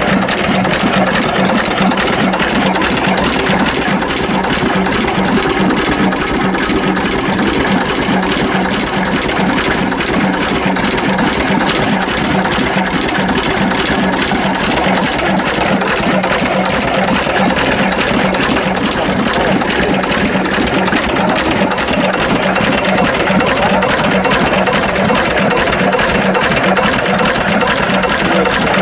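Vintage twin-cylinder stationary engine running steadily at an even, rapid beat.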